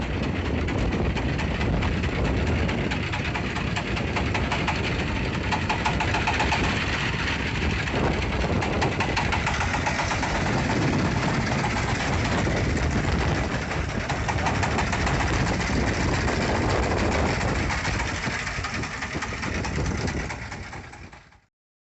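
A boat engine running steadily, then fading out near the end.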